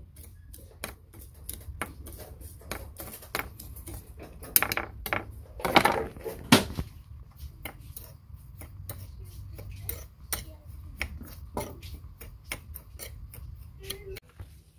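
Metal spoon clinking and scraping against a small ceramic bowl while stirring salt and ground pepper, with a few louder knocks about halfway through.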